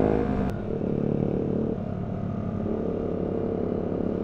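Yamaha MT-125's single-cylinder four-stroke engine running as the bike rides along, heard from the rider's seat. About half a second in, the engine note drops suddenly to lower revs and runs on steadily.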